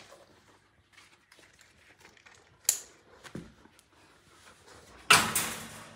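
Dog harness being fitted on an Alaskan Malamute puppy: straps and fabric rustling, a sharp click like a buckle snapping shut about three seconds in, and a louder scuffling burst about five seconds in that fades over most of a second.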